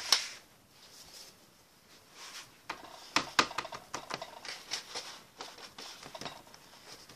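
Hands shaping and pressing pieces of bread dough on a baking tray: scattered light taps and clicks of hands and dough against the tray, the loudest right at the start.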